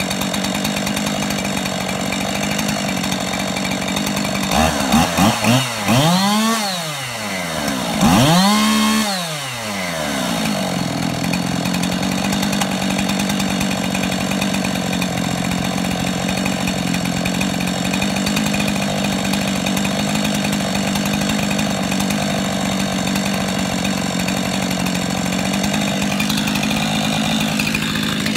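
Freshly rebuilt Husqvarna 576 XP two-stroke chainsaw idling steadily, revved up twice and back down to idle about five and eight seconds in.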